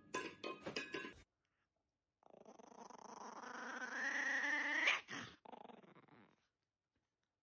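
A dog's long growling whine, rising steadily in pitch and loudness for about three seconds before it breaks off. It comes after a second of short clinking sounds.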